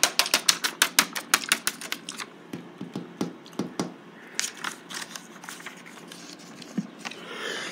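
Quick run of sharp clicks and taps from hands handling paper cards close to the microphone, about five a second at first, then thinning out to scattered taps before it goes quiet.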